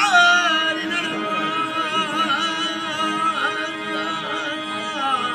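Therukoothu street-theatre music: a sung melody that bends and wavers in pitch over a steady held drone.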